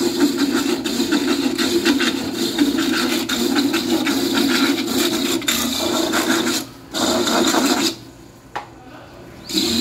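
Electric coconut grater shredding coconut meat pressed against its spinning serrated head: a steady, loud rasping scrape over a hum. It breaks off briefly about two-thirds of the way through and again for over a second near the end.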